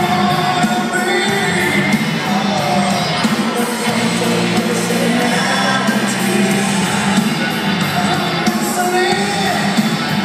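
Loud music with a singing voice played over an arena's sound system, echoing in the hall, with a crowd shouting and cheering underneath.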